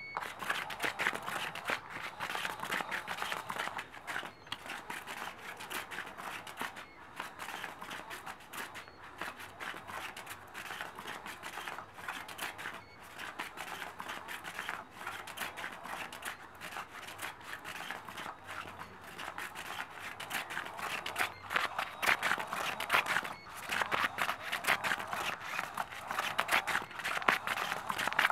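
Cat's Meow cat toy running: its battery-driven wand moves around under the fabric cover, making a steady scratchy rustle of fine clicks that gets louder in stretches near the end.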